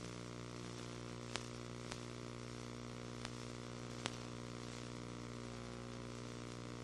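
Steady, faint hum and hiss picked up by a drone's onboard FPV camera, the pitch holding unchanged, with four faint clicks in the first four seconds.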